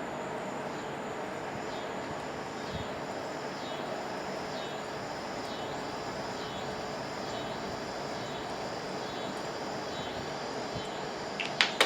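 Steady workshop background hiss with a faint high-pitched pattern repeating about once a second. Near the end come two sharp clicks, a small part or tool knocking against the workbench as it slips.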